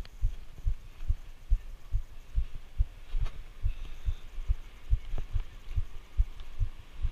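Dull, evenly spaced thumps a little over twice a second: the footsteps of someone walking with a body-worn GoPro, carried through the mount. A faint steady hiss lies behind them.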